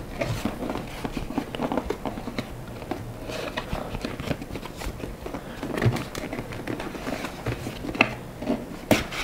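Brown cardboard box being handled and its flaps worked by hand: an irregular run of rustles, scrapes and small clicks of card against card and fingers.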